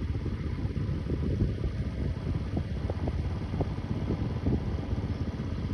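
Wind buffeting the microphone outdoors: a gusty, uneven low rumble.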